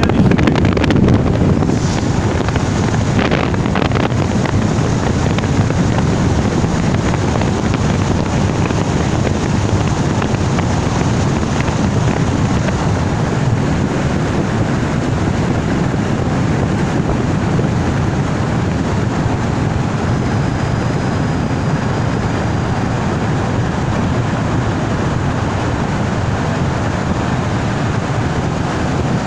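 Steady road noise of a car driving through a road tunnel, heard from inside the car: tyre rumble and wind noise.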